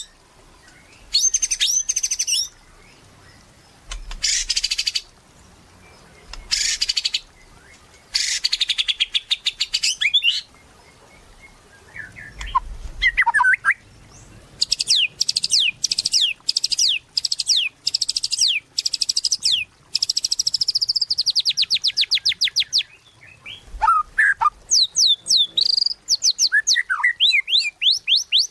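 White-rumped shama (murai batu) singing loudly in high phrases separated by short pauses, with a long run of rapid trills midway through and a few lower whistled notes.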